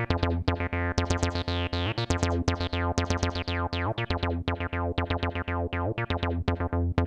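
Roland TB-03 bass synthesizer playing a rapid sixteenth-note acid bassline on its square wave, with accented notes and notes that slide in pitch between octaves. Each note has a quick downward filter sweep.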